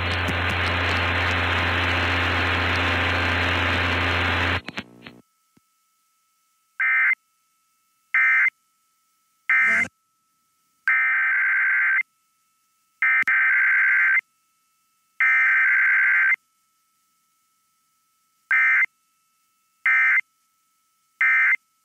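Emergency Alert System SAME digital data bursts: harsh, buzzy two-tone data tones in nine separate bursts, three short, then three about a second long, then three short. Before them, about four and a half seconds of loud hiss with a low hum cuts off suddenly into dead air.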